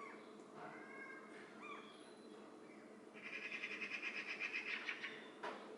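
Animal calls: a few short high chirps, then a fast, rapidly repeated high trill lasting about two seconds.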